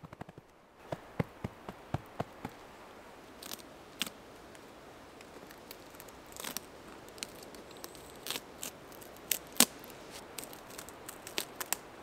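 Papery birch bark being peeled and torn off a dead birch trunk by hand: a scattered series of sharp cracks and crackles, the loudest about nine and a half seconds in.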